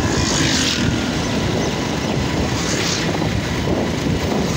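Steady road and engine noise from a moving vehicle, heard from on board, with heavy low wind rumble on the microphone. Short rushes of hiss come about half a second in and again near three seconds.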